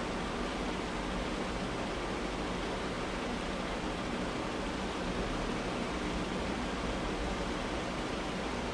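Steady hiss of room tone, with a faint low hum underneath and no distinct sounds.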